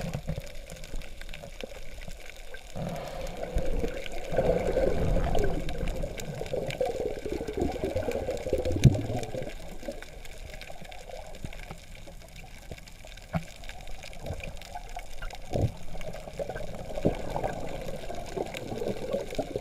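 Muffled underwater sound picked up through a GoPro's waterproof housing: water moving and sloshing around the camera in uneven swells, with a few sharp knocks.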